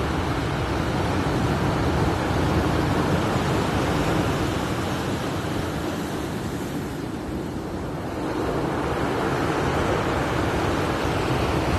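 Rough sea surf breaking and washing up a pebble beach, a steady rush of water and foam that eases a little midway and builds again about two-thirds of the way through.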